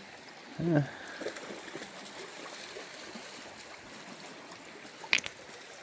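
Creek water running steadily, with a short vocal sound less than a second in and a single sharp click near the end.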